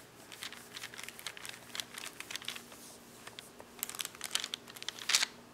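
Small rolling pin rolling out cookie dough on a sheet of paper, the paper crinkling and crackling irregularly under it, with a louder crackle about five seconds in.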